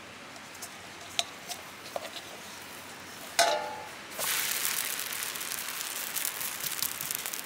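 A short metallic clank with a brief ring about halfway through. Then roti dough starts sizzling on a hot iron griddle, a steady crackling hiss.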